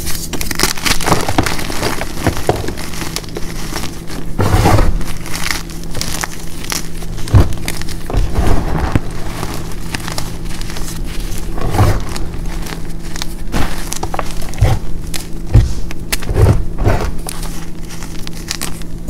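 Hands crushing and crumbling a pressed block of gym chalk mixed with baby powder, cornstarch and baking soda: crisp crunching and crackling, with repeated dull thumps as chunks are squeezed and dropped into the loose powder.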